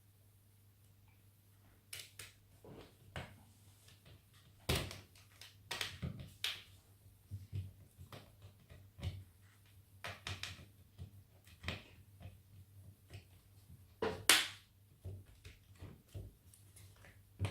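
Irregular small clicks, taps and knocks as a laptop's plastic case is handled and a small Phillips screwdriver drives its screws back in. The loudest knock comes about fourteen seconds in.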